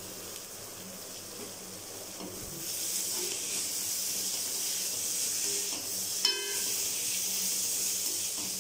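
Chopped onion, carrot and capsicum sizzling in oil and ghee in a metal kadai while a spatula stirs them. The sizzle grows louder about two and a half seconds in, and a single short clink of the spatula on the pan comes about six seconds in.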